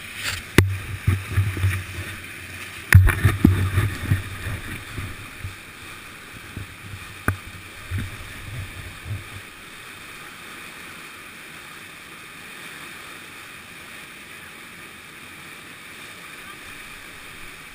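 Steady rushing of churning whitewater at the foot of a man-made waterfall. For the first nine seconds or so it is overlaid by irregular low bumps and a few sharp knocks on the microphone.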